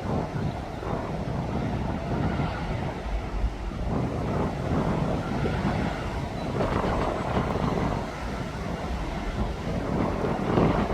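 Heavy earthmoving vehicles running on a construction site: a steady, even mechanical noise with much low-end weight.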